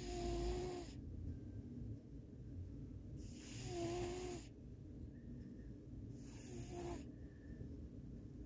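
Domestic cat snoring: three snoring breaths about three seconds apart, each a breathy hiss carrying a short whistling tone.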